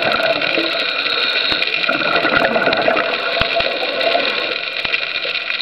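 Underwater sound picked up by a camera in its housing: a steady, water-like rushing with many faint clicks.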